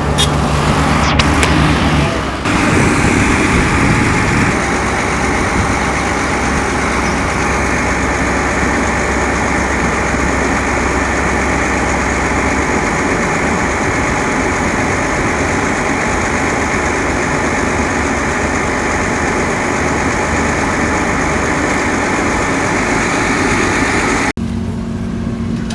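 Vehicle or machinery engines running steadily amid dense road-works noise. The sound changes abruptly about two seconds in and again near the end.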